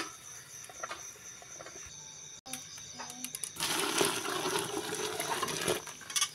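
Boiling water poured from a cooking pot into a plastic bucket of chocolate tapioca batter. The splashing pour starts a little past halfway and lasts about two seconds, after a few faint clinks.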